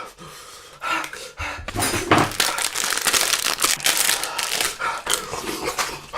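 Rustling and crinkling close to the microphone, many small crackles that thicken into a dense, continuous rustle a little under two seconds in.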